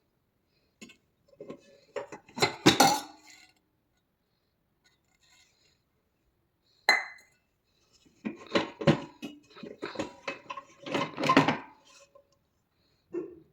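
Dishes and cutlery clinking and clattering as they are handled, in two spells of rapid knocks, with a single sharp ringing clink between them.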